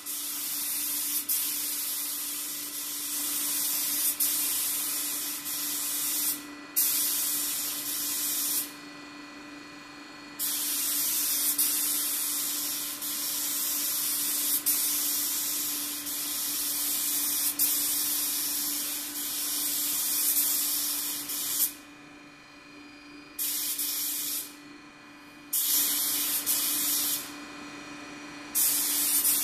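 DeVilbiss GTi Pro spray gun hissing as it sprays blue two-pack base coat, the trigger held in long passes: a short break about a third of the way in, then several brief stops and starts in the last eight seconds. A steady low hum runs underneath throughout.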